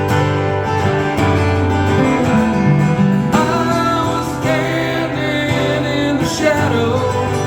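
Acoustic guitar strumming a country-style instrumental break between verses, with a second lead melody line that bends in pitch through the middle of the passage.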